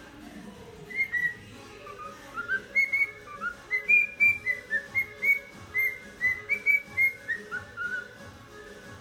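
Cockatiel whistling a learned tune: a run of short, clear notes at a few different pitches, several a second, starting about a second in and stopping about a second before the end.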